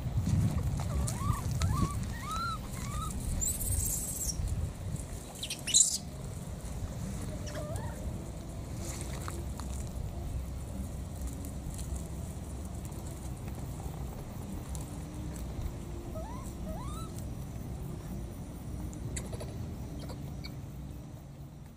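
Short chirping calls, a few in a row near the start and a few more late on, over a steady low rumble. A sharp click about six seconds in.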